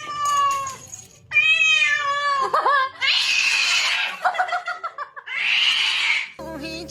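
An angry cat yowling in two long drawn-out, wavering calls, then hissing twice with a short growling call between the hisses.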